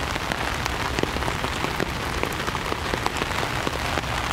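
Heavy rain falling steadily, with many single drops ticking sharply close by on the fabric of an umbrella overhead.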